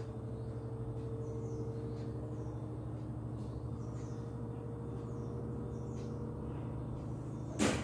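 Faint, short, high bird chirps repeating about every two-thirds of a second over a steady low hum, with a brief sharp noise near the end.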